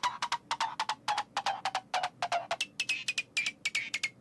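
Falling-sound sample from an electronic track playing back: a rapid run of short pitched ticks, about five a second, each a little lower than the last, jumping back up about two and a half seconds in and falling again.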